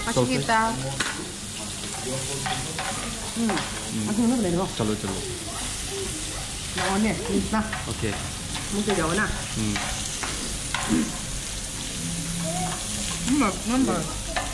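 Meat frying in a pan on a tabletop gas burner, sizzling steadily while it is stirred and turned with metal tongs.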